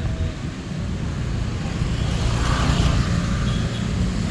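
Road traffic: motor vehicles running along the street as a steady low rumble, with a louder pass around the middle.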